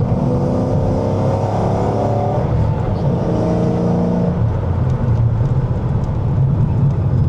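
2012 Shelby GT500 Supersnake's supercharged V8 accelerating: the engine note climbs, breaks off about two seconds in, climbs again, then settles into a steady low rumble.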